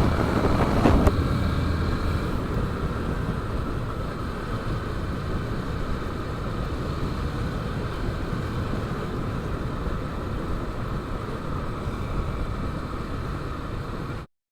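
Motorcycle ride: the engine runs under a steady rush of wind and road noise. The engine's low hum fades about two seconds in, the rush eases slightly, and the sound cuts off abruptly near the end.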